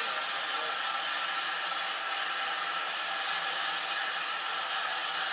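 Standing steam tank locomotive hissing a steady stream of escaping steam from low down at its buffer-beam end.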